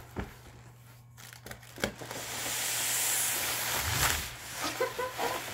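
Cardboard and plastic air-cushion packing scraping and rustling as an inner box is slid out of a large cardboard shipping box. There are scattered clicks, then a long hissing rustle of cardboard sliding against cardboard, ending in a knock about four seconds in.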